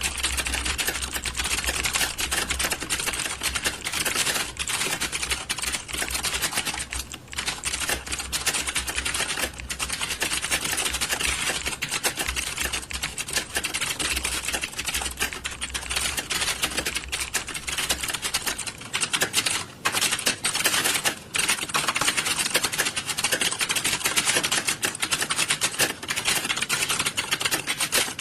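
Many computer keyboards being typed on at once, a dense, continuous clatter of key clicks typical of an exam hall during a typing test. A low hum underneath stops about two-thirds of the way through.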